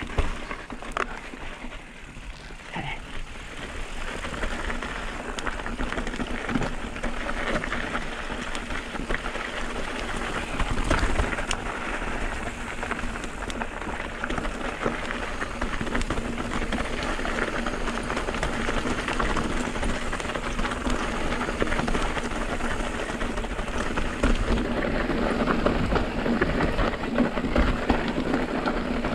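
Mountain bike rolling down a loose, rocky trail: tyres crunching and skittering over gravel and rock, with the bike rattling and many small knocks over the ride.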